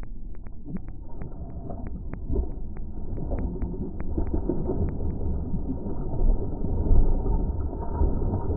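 A fishing reel clicking steadily, about three or four clicks a second, as line is cranked in on a hooked bluefish; the clicking stops about five seconds in. Under it runs low wind rumble on the microphone, and the fish splashes and thrashes at the surface, loudest near the end.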